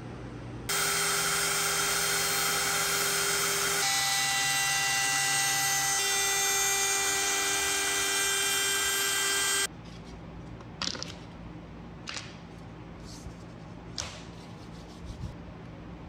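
Milling machine spindle running, its end mill cutting a red veneer-laminated strip for a pool cue, a steady whine that changes tone twice and cuts off suddenly. A few light clicks and rustles follow as the cut strip is handled.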